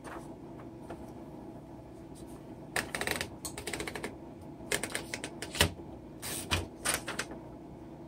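Keys of a 1961 Royal Tab-O-Matic manual typewriter being struck, the typebars clacking against the platen in short, irregular runs of keystrokes that begin about three seconds in, with one heavier strike near the middle.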